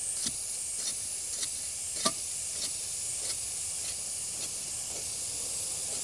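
A metal rod worked up and down in wet concrete around a steel fence post, giving scattered light taps and scrapes with one sharper knock about two seconds in, over a steady hiss.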